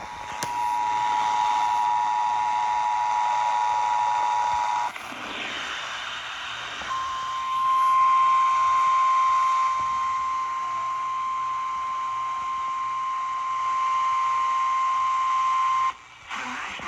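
Emergency Alert System attention signal over broadcast radio: a steady two-tone alarm for about five seconds, then after a short noisy gap a single steady, slightly higher alarm tone for about nine seconds, the weather-radio style warning tone, which cuts off abruptly near the end.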